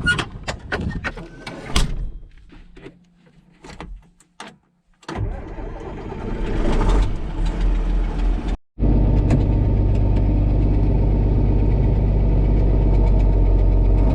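A few clicks and knocks, then an old John Deere 4640 tractor's six-cylinder diesel starts about five seconds in. After a brief break it runs steadily, with the puffing of an exhaust leak that has not yet been fixed.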